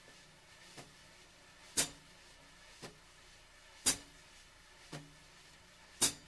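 Wire brushes swept in slow circles on a snare drum at a ballad tempo, two circles per beat: a soft steady swish with a light accent about once a second, every other accent stronger. Near the end two sharper hits come close together.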